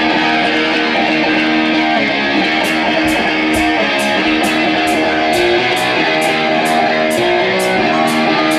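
Live rock band playing, led by an electric guitar holding sustained notes and bending the pitch of some near the end, over drums. A cymbal strikes about twice a second from about two and a half seconds in.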